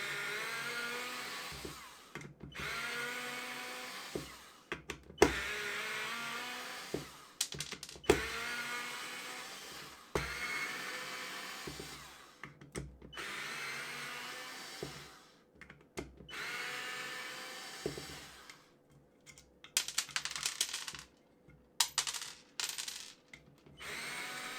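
Parkside PASS 4 A1 4-volt cordless electric screwdriver driving screws one after another: about seven runs of motor and gear whine, each about two seconds long, sagging in pitch as the screw tightens, with sharp clicks between runs. Near the end the runs turn short and broken as the battery runs down to empty.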